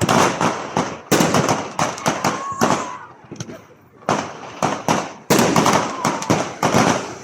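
Fireworks bursting in rapid succession, sharp bangs with crackle between them, easing off briefly about three seconds in before a fresh run of bangs.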